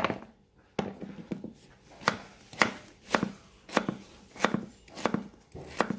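Cleaver chopping pieces of a white vegetable on a round wooden chopping block: about ten sharp chops, unevenly spaced, roughly one every half second or so.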